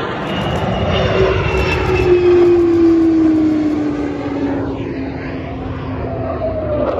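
Jet aircraft passing low overhead and flying away. The engine noise is loudest about two to three seconds in, and a whining tone falls steadily in pitch as the jet recedes.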